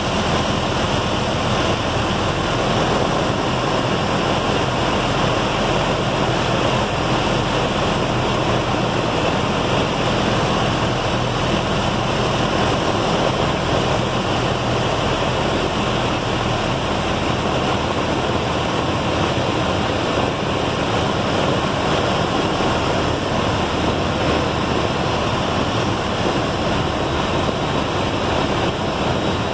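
Cabin noise in a Piper PA-28-161 Warrior gliding with the throttle at idle: a steady rush of air over the airframe with the idling four-cylinder Lycoming engine droning low beneath it.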